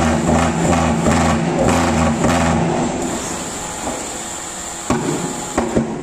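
Petrol-fired thermal fogging machine being started with its button starter: a steady buzzing hum in a run of short bursts for the first couple of seconds, then dying down, with two sharp clicks near the end.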